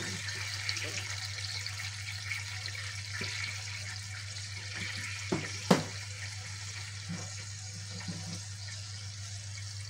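Whole spices and garam masala sizzling in hot oil with a little water in a metal pot: a steady hiss, with a sharp knock about six seconds in. A low steady hum runs underneath.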